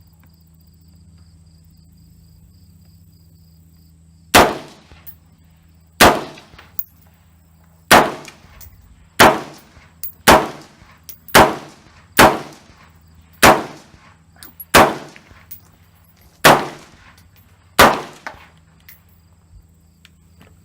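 AR-15 semi-automatic rifle fired shot by shot: eleven sharp shots, each with a ringing tail, spaced about one to two seconds apart, beginning about four seconds in.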